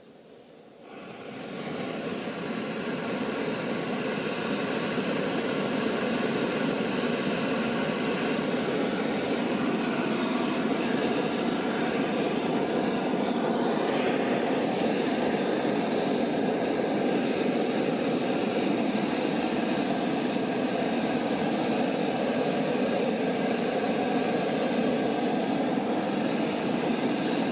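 MSR Pocket Rocket canister stove lit under a pot of water: the gas burner starts about a second in, builds quickly, then runs with a steady hiss.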